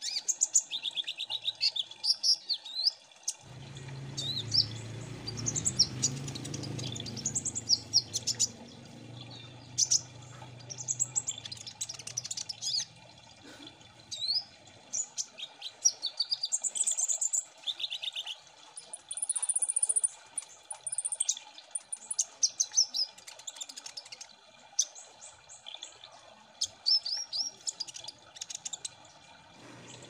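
Several kolibri ninja sunbirds singing together: a dense stream of overlapping high-pitched chirps, twitters and quick trills. A low rumbling noise runs underneath from about three and a half seconds in until about fifteen seconds.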